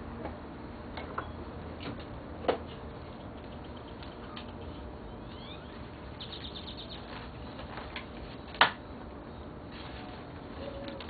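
Outdoor ambience with small birds chirping, including a quick run of short high chirps past the middle. Two sharp snaps or knocks, about two and a half seconds in and again past eight seconds, are the loudest sounds. A dove begins cooing faintly near the end.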